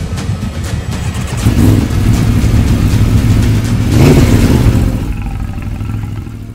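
Vehicle engine revving, building about a second and a half in, loudest around four seconds, then fading away.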